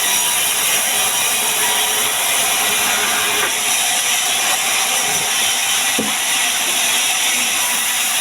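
Power tool working wood: a steady, even rush of noise, strongest in the high pitches.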